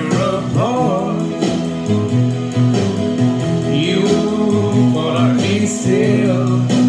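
Music: a man singing a melody over guitar accompaniment.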